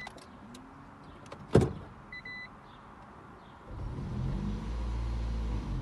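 A 2007 Toyota Prius being started: a sharp click about a second and a half in, two short dashboard beeps, then the petrol engine starting up and running with a low steady hum for the last two seconds.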